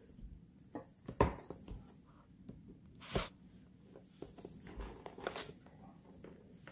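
Faint handling noises: small clicks and rubs as the plastic cord plug of a portable nail drill's handpiece is turned over in the fingers, with a few louder brief scrapes about one, three and five seconds in.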